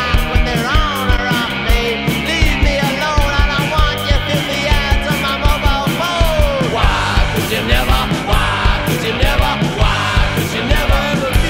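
Rock soundtrack music in a punk style, with a steady, driving drum beat and bending guitar or vocal lines.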